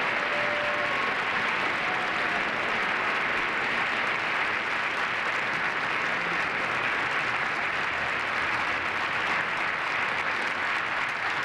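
Long, steady applause from a large audience of many hands clapping together.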